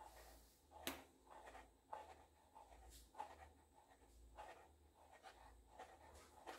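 Very quiet, soft rubbing and light clicks about once a second: a red high-heeled pump dangling and swinging on a foot in sheer nylon pantyhose, the shoe rubbing and tapping against the stockinged heel.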